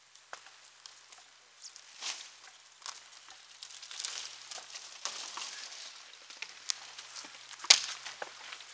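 Rustling and crackling of twigs and tree debris, with scattered sharp snaps; one loud snap comes near the end.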